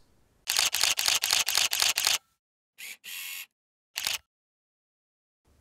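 Single-lens reflex camera shutter firing: a rapid burst of shutter clicks, about seven a second for a second and a half, then a brief noisy sound and a couple of single shutter clicks.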